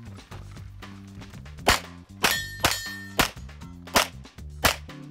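Six shots from a Canik TP9 SFx 9mm pistol, starting a little under two seconds in and spaced roughly half a second apart. A steel target rings with a clear tone for almost a second after the second shot.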